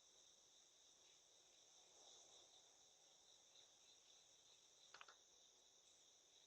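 Faint, steady insect chorus trilling high, with a short sharp double click about five seconds in.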